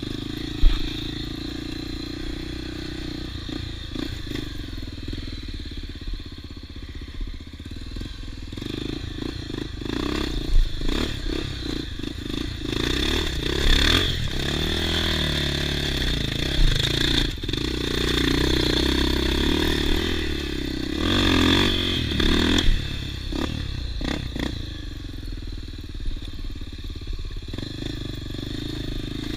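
Off-road motorcycle engine running, revving with its pitch rising and falling and getting louder from about nine seconds in, then easing back a little over twenty seconds in, with scattered clicks and clatter.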